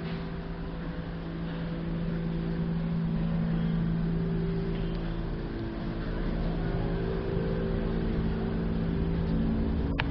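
A steady low mechanical hum over a low rumble, like an engine running, with a single sharp click at the very end.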